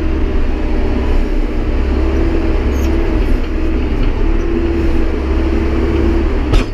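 Tractor backhoe's engine running under load while its bucket scoops gravel, with a whine that rises and dips. A sharp clank comes near the end.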